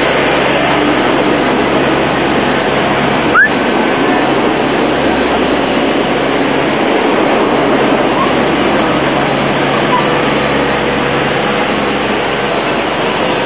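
A motor running steadily close by, with a brief rising chirp about three and a half seconds in.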